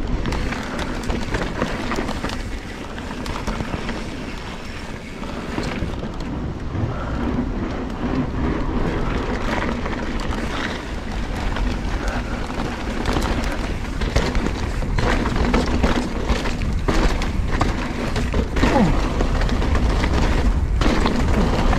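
Giant Trance full-suspension mountain bike ridden over a dirt forest trail: tyres rolling and crunching on dirt and roots, with the chain and frame rattling in frequent clicks and knocks, under heavy wind rumble on the action camera's microphone. A couple of short falling squeaks near the end.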